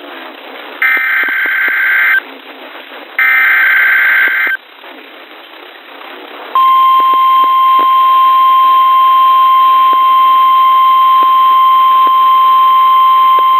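Emergency Alert System data header: two buzzy bursts of digital warble, about a second and a half each and a second apart. After a short stretch of radio hiss comes the steady single-pitch NOAA Weather Radio 1050 Hz warning alarm tone, the sign that a warning, here a severe thunderstorm warning, follows.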